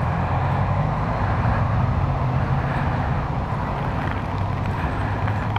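Kawasaki ER-6n's parallel-twin engine running at steady low revs while riding in traffic, heard over wind and tyre noise on a wet road.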